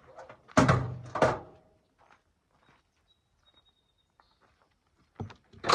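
Heavy thunks of hard objects knocking: two loud ones about half a second apart near the start, then two more near the end.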